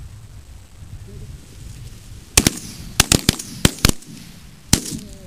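A volley of about nine shotgun blasts from several hunters firing together at ducks. The shots come in quick, uneven succession over roughly two and a half seconds, starting a little over two seconds in.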